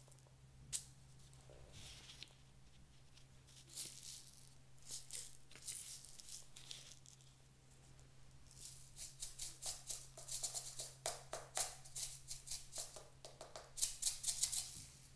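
Small beads rattling inside a hollow lantern ornament as it is shaken and tipped, pouring them out onto slime: scattered clicks at first, then quick rattling runs that are busiest in the last few seconds.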